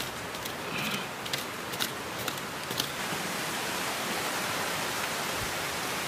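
Steady outdoor hiss. A few light clicks and rustles in the first three seconds come from hands working a tuber out of loose soil.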